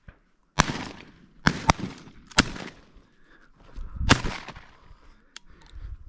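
A volley of about five shotgun shots fired at incoming doves. Two shots come close together about a second and a half in, and one last shot comes about four seconds in.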